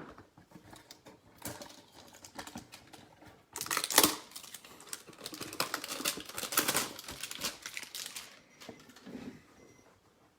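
Trading cards and a foil pack wrapper being handled on a table: scattered clicks and taps, with a run of dense crinkling from a few seconds in until near the end.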